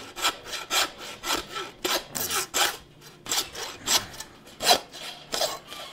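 Hand meat saw cutting through deer bone, about a dozen back-and-forth strokes at an uneven pace.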